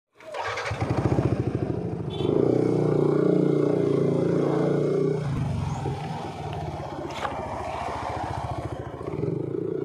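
Yamaha NMAX 155 scooter's single-cylinder engine running steadily, with a louder stretch from about two to five seconds in.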